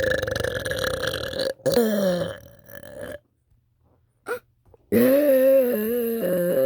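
A person burping loudly: a long burp ending about a second and a half in, a shorter burp that falls in pitch, a pause, then another long burp with a wavering pitch from about five seconds in.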